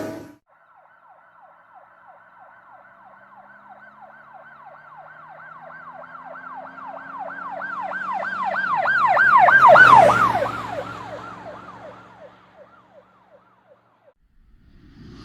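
Police car siren yelping in fast rising-and-falling sweeps, about three a second, growing louder to a peak about ten seconds in and then fading away as the car passes. A lower engine hum underneath drops in pitch as it goes by.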